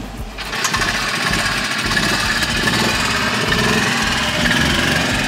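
EZGO TXT golf cart with a 25-horsepower Vegas Carts VRX460 gas engine conversion, running steadily under throttle as the cart drives off. The sound comes in about half a second in.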